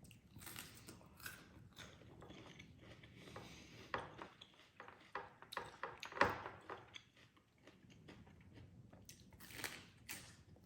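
Soft chewing and mouth sounds of a person eating salad, with scattered small clicks and a sharper click about six seconds in.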